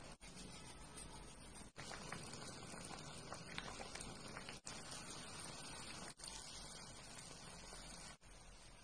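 Faint bubbling of spicy hot-pot broth boiling in a cast-iron pot, with small clicks of utensils. The sound is broken by a few brief dropouts.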